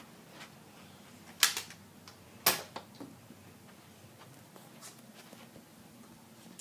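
Spring-powered Nerf EX3 blaster being cocked and fired: a sharp click about a second and a half in, then a louder snap a second later, followed by two faint taps.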